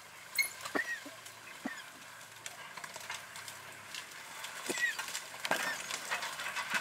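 African wild dogs squabbling over a kill: a few short, high twittering squeaks, about a second in and twice more near the end, with scattered clicks as they tug at the carcass.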